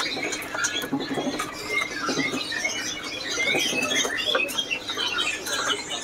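Many small caged songbirds chirping and twittering at once, a dense overlapping chorus of short high calls with scattered light clicks.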